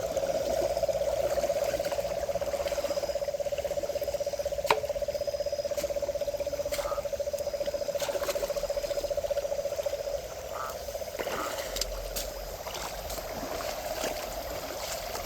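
Frogs calling at night, a continuous fast-pulsing trill that eases off a little about two-thirds of the way through. There is a sharp click about a third of the way in, and faint water trickling underneath.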